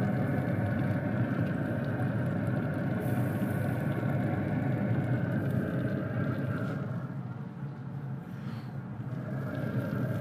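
Steady whirring hum and rumble of fans running, easing slightly about seven seconds in.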